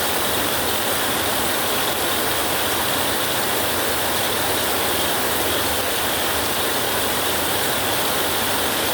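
Rain falling steadily in an even hiss, without thunder.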